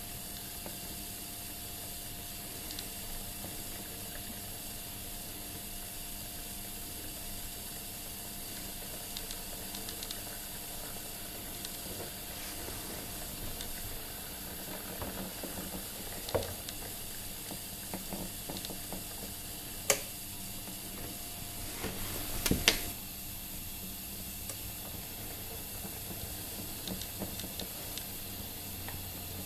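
Steady low hiss with a faint hum: background noise of the recording while a model sits on a turning display stand. A sharp click about twenty seconds in, and a short cluster of clicks a couple of seconds later.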